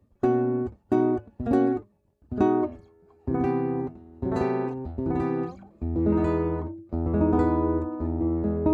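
Yamaha nylon-string acoustic-electric guitar playing chords: four short chords that are stopped quickly, then longer strummed chords that ring on from about three seconds in.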